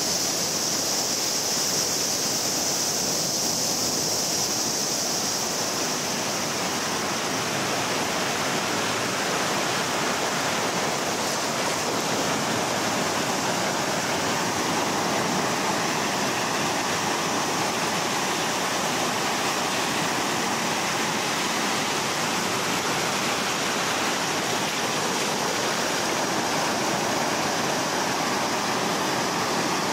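Ocean surf washing onto a shallow sandy beach: a steady, even rush of small waves. A steady high-pitched buzz sits over it in the first several seconds and then fades.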